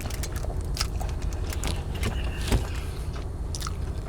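Steady low rumble of a car heard from inside the cabin, with scattered small clicks and crackles from handling food and chewing.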